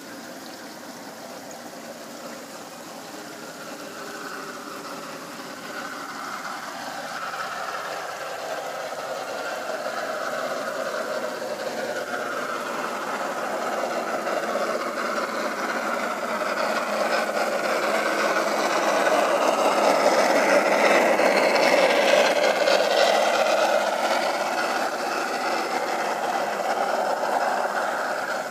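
G-scale model Shay locomotive and its loaded log cars running over the track and trestle, a steady mechanical running and rattling that grows louder as the train approaches, peaks about two-thirds of the way through, then fades as it passes.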